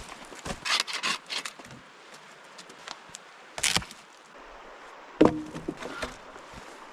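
Wooden poles knocking and clattering against one another as they are handled and laid onto a shelter frame, with the loudest knock about five seconds in.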